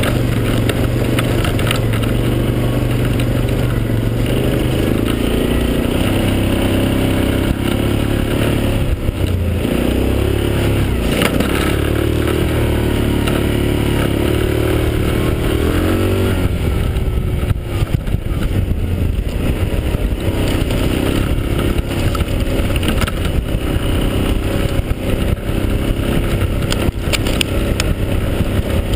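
Yamaha Grizzly 550 quad's single-cylinder engine running under way, heard close from a camera mounted on the quad, its pitch rising and falling repeatedly with the throttle. Gravel and stones clatter under the tyres.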